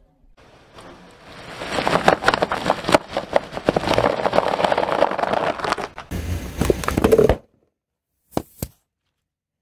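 A car tyre rolling over and crushing a clear plastic bag of crumbly contents: a dense crackling and crunching that builds about a second and a half in and cuts off suddenly after about seven seconds. Two short clicks follow near the end.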